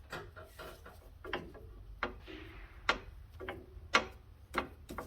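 Irregular sharp clicks and knocks, about seven in all, of metal parts and tools being handled while working on an ATV's suspension arms.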